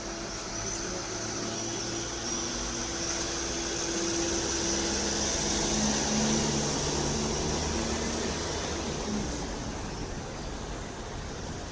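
Ambulance engine running as the vehicle moves off and drives past along a narrow street, growing louder to a peak about halfway through and then fading as it goes.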